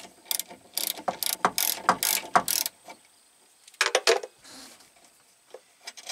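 Ratchet wrench clicking quickly, about four clicks a second, as it works the clutch linkage adjusting nut on the rod; the clicking stops about three seconds in and comes back as a brief cluster a second later.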